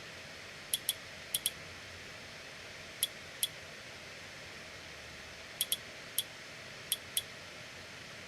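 Small, sharp plastic clicks from handling the action camera parts and accessories, about eleven of them, several in quick pairs, over a steady hiss.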